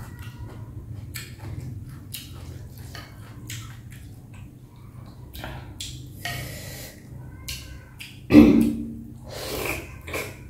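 Close-up eating sounds from a bowl of bún bò Huế with pork trotter: wet chewing and lip smacks repeating throughout, a sudden loud mouth sound about eight seconds in, then slurping of noodles near the end.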